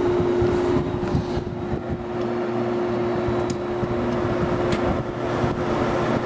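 Window air conditioner running on low fan with its compressor on: a steady hum with one constant tone over the rush of fan air.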